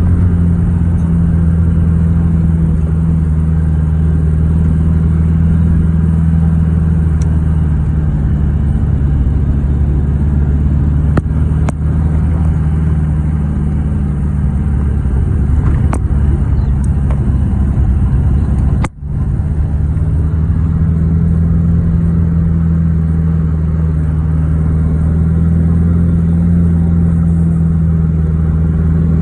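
Steady low engine and road drone of a moving vehicle, heard from inside the cabin. The sound dips out briefly about two-thirds of the way through.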